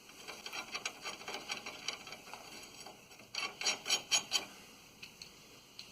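Ratchet wrench clicking in quick, uneven runs as nuts are run down onto new rear U-bolts, with a louder burst of clicks a little past the middle.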